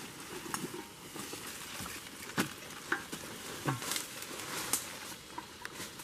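Footsteps rustling and crunching through dry leaf litter and undergrowth, with a few sharp cracks of twigs or sticks scattered through.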